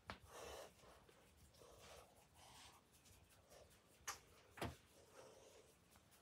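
Near silence: quiet room tone with a few faint clicks and a brief soft rustle, the loudest click about four and a half seconds in.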